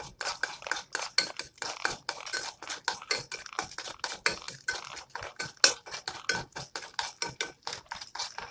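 A utensil scraping and tapping against a frying pan in quick repeated strokes, about four or five a second, as eggs are turned and stirred in the pan.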